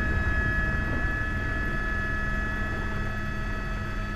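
Helicopter in flight: a steady low drone with a steady high whine over it.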